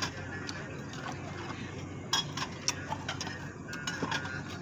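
Spoon and fork clinking against a ceramic bowl while eating noodles, a handful of separate sharp clinks over a steady low hum. A brief high tone sounds about four seconds in.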